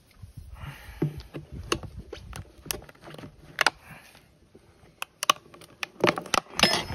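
Metal tire spoons clicking and scraping against a Honda Monkey 125 wheel rim, with the crinkle of a cut plastic water-bottle rim protector, as the rear tire bead is levered off. Irregular sharp clicks, busiest near the end.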